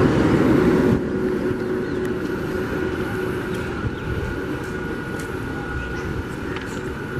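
Electric multiple unit local train: a train running close past for about a second. After a cut, a steady low hum with a faint high whine from an EMU standing at the platform with its equipment running.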